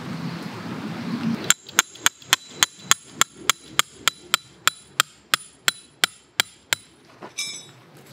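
Hammer blows driving a metal tent peg into the ground: a quick, even run of about eighteen strikes, some three or four a second, each with a short high metallic ring. A few lighter clinks follow near the end.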